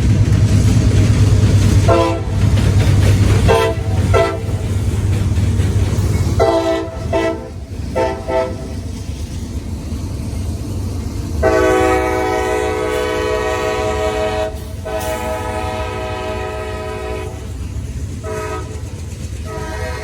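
Diesel freight locomotive's air horn sounding a chord over the heavy rumble of the train. First it gives several short blasts, then two long blasts, a short one and another long one, the long-long-short-long grade-crossing signal.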